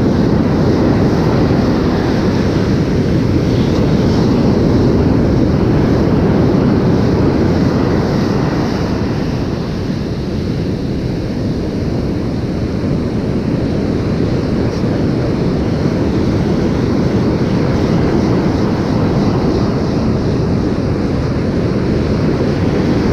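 Steady wind blowing across the microphone, with surf breaking on the shore behind it.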